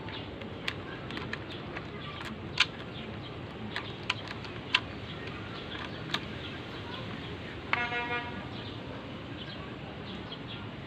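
Sharp metallic clinks of hand tools and parts, about half a dozen spread irregularly, over a steady background hiss, with a short horn-like toot about eight seconds in.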